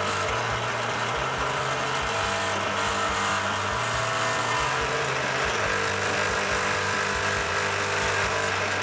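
Cordless drill running steadily under load, boring a 5/8-inch hole through a metal bracket after a pilot hole.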